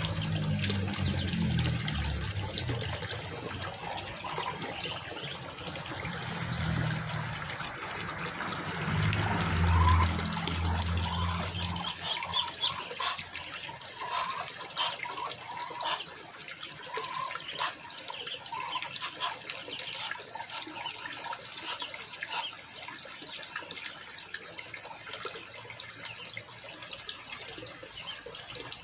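Water trickling steadily, with a low rumble that stops about twelve seconds in; after that many short, high chirps and clicks come through over the trickle.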